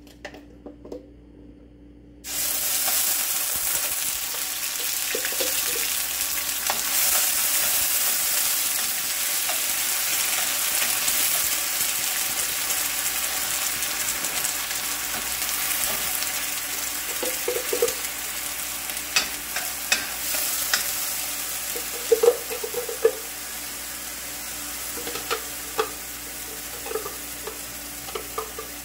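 Blended garlic and onion purée hits hot oil in a stainless steel frying pan, bursting into a loud sizzle about two seconds in. The sizzle slowly dies down, with scattered pops later on.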